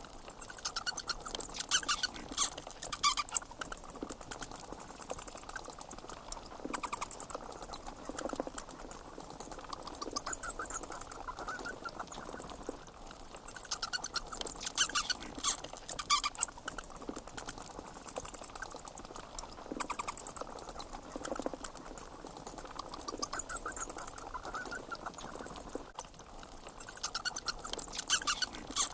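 Bats squeaking: trains of rapid, very high-pitched chirps that come in bursts a second or two long with short pauses between.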